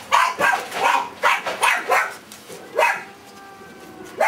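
Dog barking: a quick run of barks in the first two seconds, then two more single barks spaced out after it.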